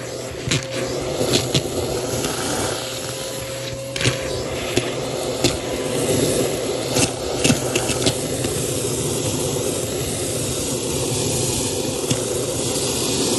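Vacuum cleaner running steadily through a crevice tool, sucking up dry red lentils, which rattle up the wand with scattered sharp clicks.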